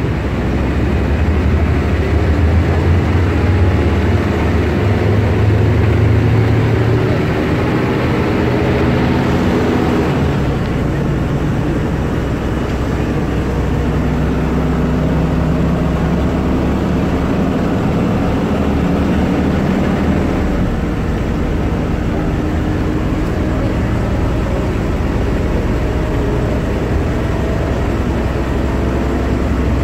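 Ikarus 280 articulated bus's diesel engine running under way, its note climbing and then dropping back about ten seconds in and again about twenty seconds in, as it pulls away and shifts up.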